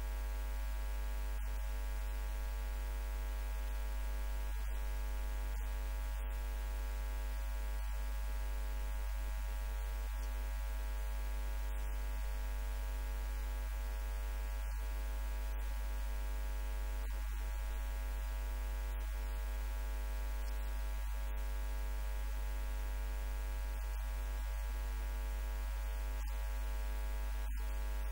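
Steady electrical mains hum, a buzzy tone with many evenly spaced overtones, unchanging throughout; no speech is heard.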